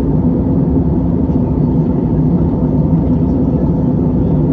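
Steady cabin drone of an Airbus A320-family jet airliner in cruise: engine and airflow noise heard from inside the cabin, a low, even rumble with a faint steady hum.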